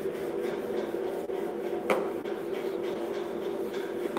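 Whiteboard duster rubbing across a whiteboard as the board is wiped clean, over a steady hum, with one sharp tap about two seconds in.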